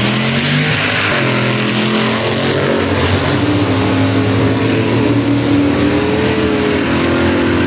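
Two drag-racing cars, a white Buick Grand National and a Nova, launching and accelerating hard down the strip. Their engines rev loudly, the pitches climbing and dropping back through the gears, until the sound cuts off at the end.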